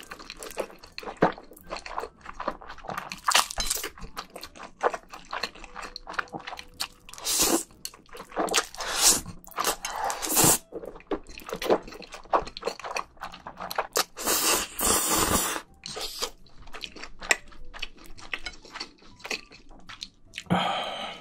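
A person eating black bean noodles (jajangmyeon) close to microphones: wet slurps of saucy noodle strands and smacking chews, with several longer slurps of about a second among the short clicks of chewing.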